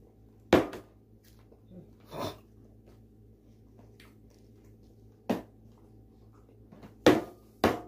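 Sharp knocks of a plastic sippy cup against a table or high-chair tray: a loud single knock about half a second in, softer ones a little later, and a quick run of loud knocks near the end.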